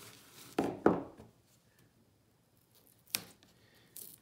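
Handling knocks and scrapes from an old pasteboard book cover being moved and turned on a wooden table: two dull knocks with a short scrape about a second in, the loudest part, and another knock about three seconds in.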